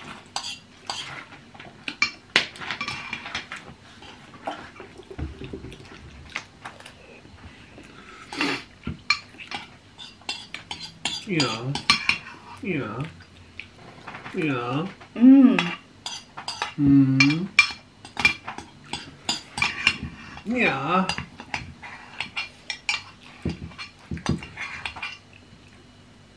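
Metal spoon clicking and scraping against a bowl while eating, many short clinks in a row, with a few stretches of low voice in the middle.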